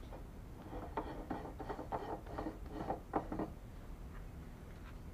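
Metal-on-metal rubbing and light irregular clicking as a threaded lathe drive dog plate is unscrewed by hand from a steel thread plug gauge held in the chuck. The clicks are busiest between about one and three and a half seconds in.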